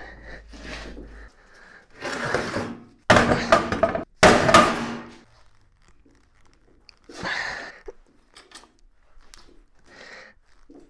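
Heavy metal clanks and thuds from bending a 3/16-inch steel plate with improvised levers, the two loudest about a second apart some three seconds in, each ringing briefly. Weaker knocks follow later.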